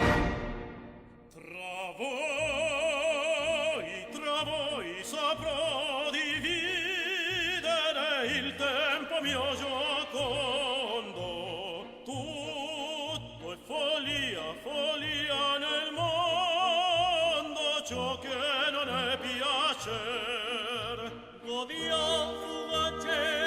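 Operatic singing with orchestral accompaniment. A solo voice with wide vibrato sings long held and sliding notes. The music fades in the first second or so, the voice enters about two seconds in, and there is a short break a couple of seconds before the end.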